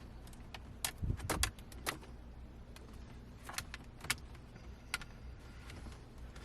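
Sharp plastic clicks and taps as a clear LED light strip is pressed into the trim gaps of a center console: a quick cluster about a second in, then single clicks spread through the rest, over a steady low hum.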